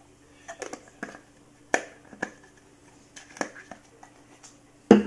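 Handling sounds from a plastic bottle being capped and put down on a wooden tabletop: a series of light clicks and knocks, with one louder knock near the end.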